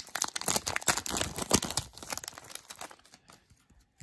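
Foil wrapper of an Upper Deck hockey card pack crinkling and tearing as it is ripped open by hand; the crackling dies away about three seconds in.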